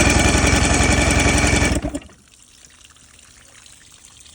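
Two-stroke outboard engine being cranked over for a compression test, a fast even pulsing with a steady whine, stopping abruptly about two seconds in. The cylinder reads a little over 120, healthy compression.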